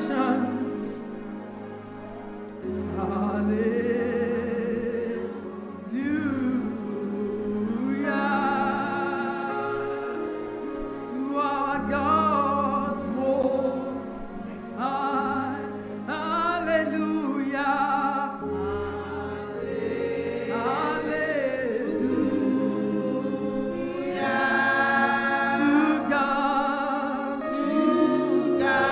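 Gospel worship song: several voices singing held, wavering notes over sustained bass and chord accompaniment that changes every few seconds.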